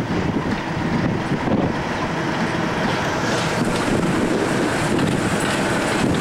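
Class 37 diesel-electric locomotive passing close by at the head of a train, its English Electric V12 diesel engine running. From about three seconds in, wheel noise on the rails grows louder.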